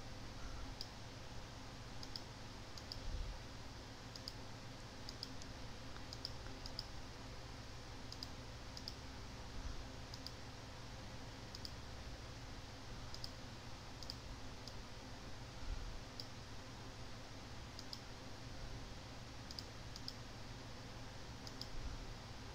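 Computer mouse clicking: scattered single clicks, some in quick pairs, over a faint steady low hum.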